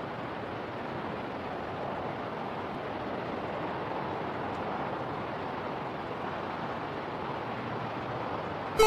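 Steady wind blowing across the microphone on an exposed summit ridge.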